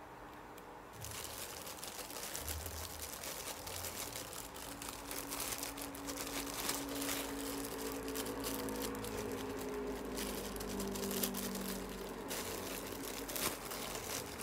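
Clear plastic packaging crinkling and rustling as a cooler is handled and unwrapped. It starts about a second in and carries on as an uneven run of small crackles.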